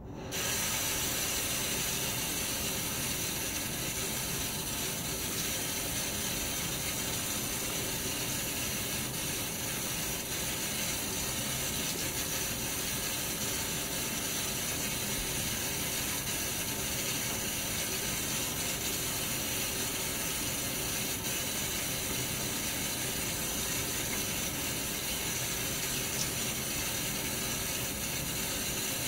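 Bathroom sink faucet running in a steady stream.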